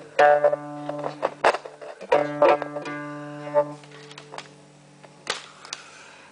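Ruan, a round-bodied Chinese plucked lute, playing plucked notes and strummed chords that ring and die away about four seconds in. After that come a few faint clicks and a short rustle.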